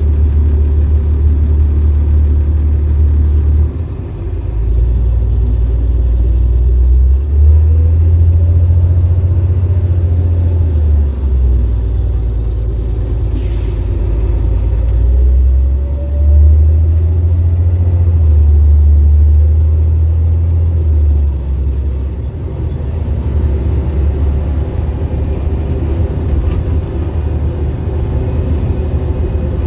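Interior sound of a Denning Phoenix city bus under way, its rear-mounted Caterpillar diesel giving a loud low drone that steps up and down in pitch several times as the automatic gearbox shifts, with rising whines as it accelerates. A brief sharp sound cuts through about halfway.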